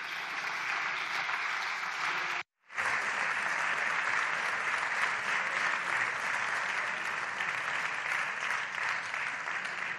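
Sustained applause from many deputies at the end of a speech, with a brief complete dropout about two and a half seconds in.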